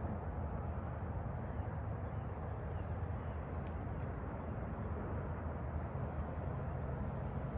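Steady low outdoor rumble with no distinct events, such as distant road traffic or light wind on the microphone.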